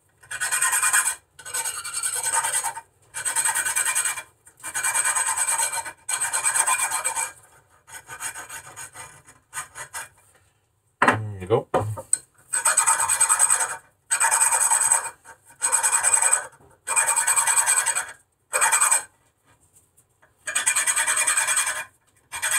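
Hand file scraping back and forth over small steel brake-pad retaining pins, about a stroke a second, to clean surface rust off them. A brief knock breaks the filing about halfway through.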